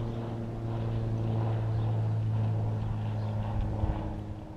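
A steady low motor drone with even overtones, swelling and then easing off, with a couple of low knocks near the end.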